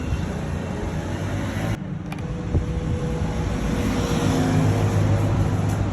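Honda CG125 motorcycle's single-cylinder engine running steadily, with a brief dropout about two seconds in and one sharp pop a little after.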